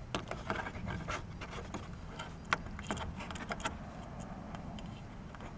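Light clicks and rubbing from small-parts handling: a doorbell wire being bent by hand and wrapped around the bottom terminal screw. There are scattered small ticks, with one sharper click about two and a half seconds in.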